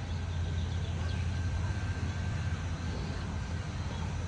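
A steady low rumble, with a few faint bird chirps above it.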